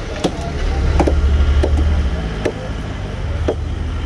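Large curved knife cutting through yellowfin tuna loin and striking a wooden chopping block: about five sharp knocks at uneven intervals, over a low rumble.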